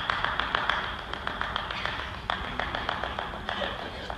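One person clapping alone in a large empty auditorium, about six claps a second.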